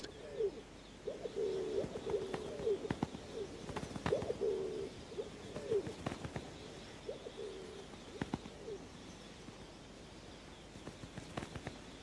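Rock pigeons cooing: a run of repeated low, wavering coos over most of the stretch, stopping a few seconds before the end, with scattered faint clicks.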